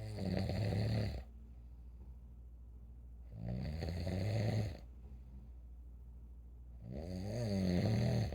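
An elderly person snoring in deep sleep: three long snores about three and a half seconds apart, each swelling louder before it breaks off.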